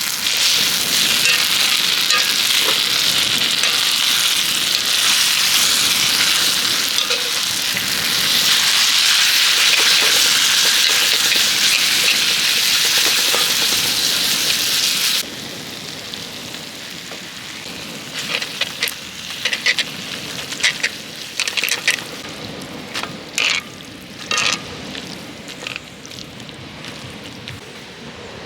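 Food frying with a loud, steady sizzle on a multi griddle pan. About halfway through it drops abruptly to a much quieter sizzle broken by scattered sharp clicks and crackles.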